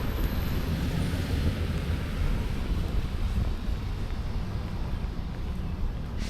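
Steady low rumble of motor traffic on the street, with no single event standing out.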